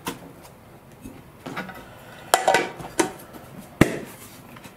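Several sharp clicks and light clattering knocks of small hard objects being picked up and set down on a workbench, about five separate hits with the loudest near the end.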